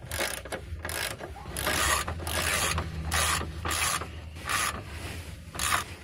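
Socket ratchet clicking in a string of short, uneven strokes as it runs down the front lower control arm bolts.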